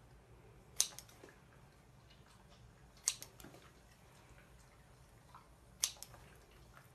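Scissors snipping: three sharp snips of the blades closing, about two to three seconds apart.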